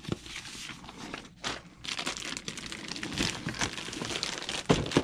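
Clear plastic wrapping crinkling and rustling as a boxed model train car in its plastic sleeve is handled and pulled out of its cardboard box. A sharp thump comes near the end.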